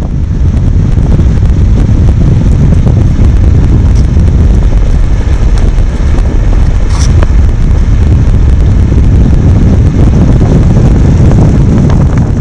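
Loud, steady wind buffeting on the microphone together with the low rumble of a vehicle driving, recorded from the moving vehicle.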